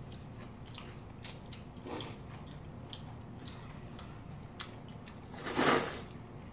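People chewing and slurping noodles, with soft mouth clicks and smacks, then one loud slurp of noodles about five and a half seconds in.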